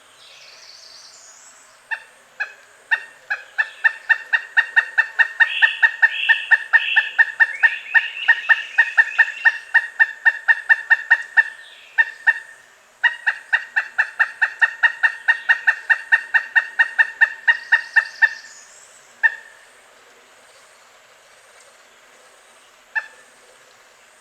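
Pileated woodpecker calling: two long series of loud, evenly repeated 'kuk-kuk-kuk' notes, several a second, the second starting after a one-second break, then two single notes. A fainter second bird call, rising in pitch, is heard near the start and again near the end of the second series.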